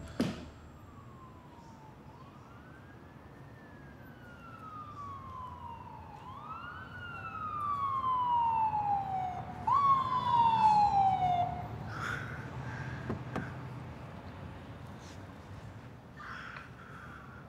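Police car siren wailing, each cycle rising quickly and falling slowly over about three seconds, growing louder and then cutting off about twelve seconds in. A few faint clicks follow.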